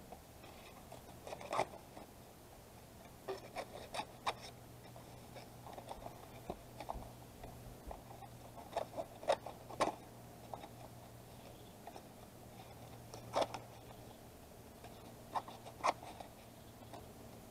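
Scattered light clicks and rustles from cardboard packaging and scissors being handled, about a dozen short sounds spread out, over a faint steady low hum.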